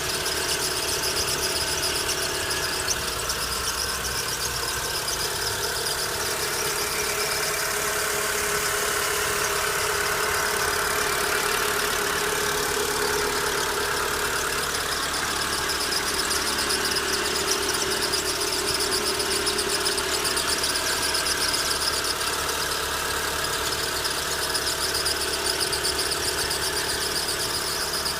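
An engine running steadily, with several held whining tones over a continuous noise.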